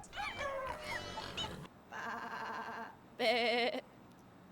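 Sheep bleating twice: a flatter bleat, then a louder, quavering "baa".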